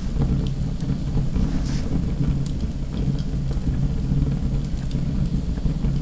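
Wood fire burning in a wood-burning stove: a steady low rumble of the flames with scattered sharp crackles and pops from the logs.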